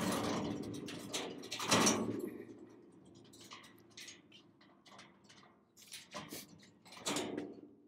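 Wheeled stainless-steel hopper rolling on its casters over concrete, its metal frame rattling, with a loud clunk about two seconds in and scattered knocks and clicks as it is pushed into place over the press basket.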